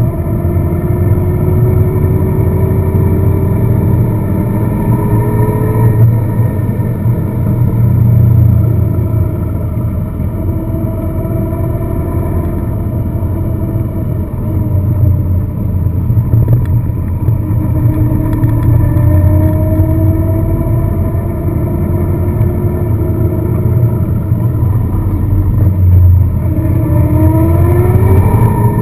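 Car engine and road noise while driving. The engine note climbs several times and drops back, as the car accelerates through the gears.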